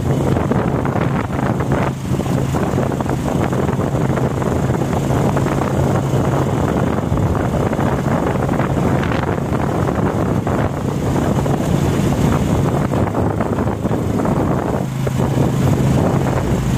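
Wind buffeting the microphone on a moving motorcycle, over the steady hum of its engine cruising along the road.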